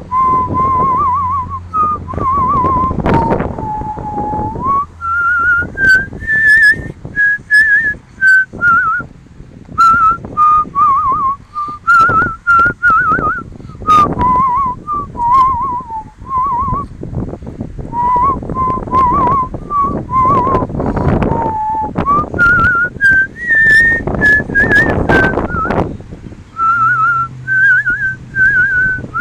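A person whistling a slow tune in held, warbling notes, with wind gusting on the microphone.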